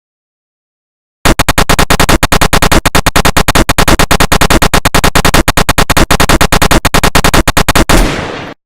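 Long burst of automatic-gunfire sound effect, very loud, at about ten shots a second for nearly seven seconds, starting abruptly after a second of silence and ending with a short fading tail.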